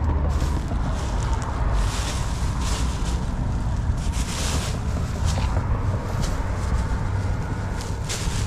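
Wind buffeting the microphone as a steady low rumble, with clear plastic bags rustling and crinkling in several short bouts as they are handled.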